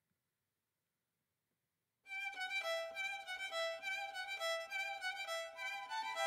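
Silence, then about two seconds in instrumental music starts suddenly: a melody of held, bowed-sounding notes.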